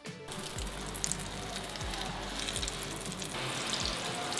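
Beaten egg sizzling and crackling as it fries in plenty of hot oil in a pan, cutting in just after the start and then steady.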